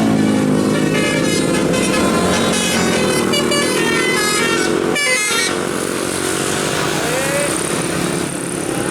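Multi-tone telolet bus horn playing a quick tune of changing notes, with an engine running underneath; the tune breaks off about five seconds in.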